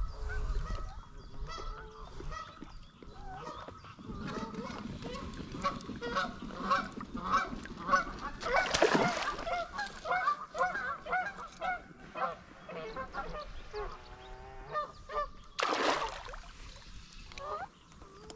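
Geese honking again and again, many calls overlapping. Two brief bursts of rushing noise cut through, about nine and sixteen seconds in.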